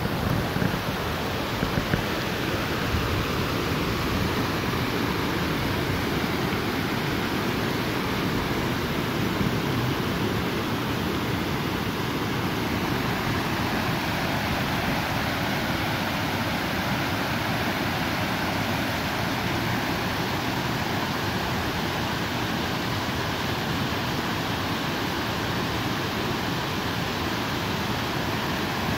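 Waterfall: a steady, even rush of falling water, with a few light knocks in the first couple of seconds.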